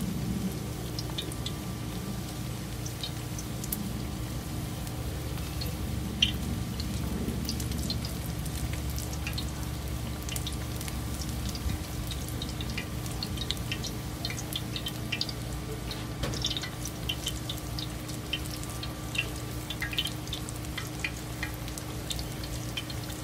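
Beer-battered mushroom slices frying in hot oil in a cast iron skillet: scattered crackles and pops, busier in the second half, with one sharper click about six seconds in, over a steady low hum.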